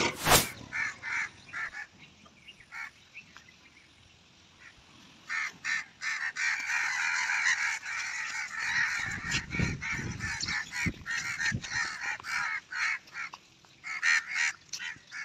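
Harsh bird calls repeated in quick succession, sparse at first and then dense over the second half, with a sharp click right at the start.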